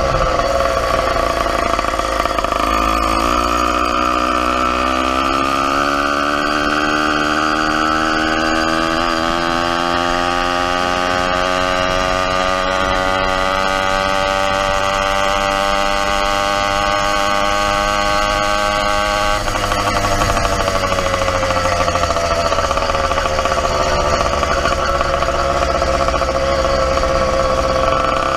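YD100 two-stroke bicycle engine running under way, its pitch climbing slowly as the bike gathers speed. About two-thirds through the sound changes abruptly as the throttle eases, the pitch sags, then climbs again near the end.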